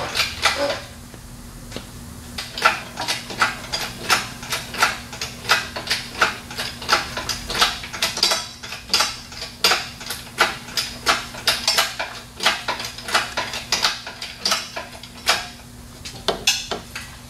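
Irregular metallic clinking and clanking, several knocks a second, as the Chevy Cruze's 1.4-litre turbo engine and its lifting hardware knock and rattle while it is hoisted out of the engine bay, over a faint steady hum.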